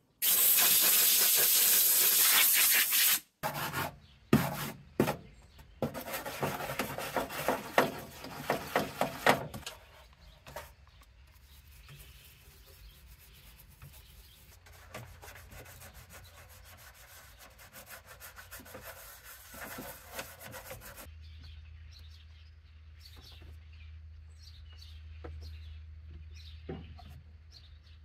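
A hose-fed spray gun hisses in one steady blast for about three seconds, then gives a run of short spray bursts. Quieter scratchy scrubbing with a small brush and rag-wiping on the engine-bay parts follow, with a faint low hum under the last few seconds.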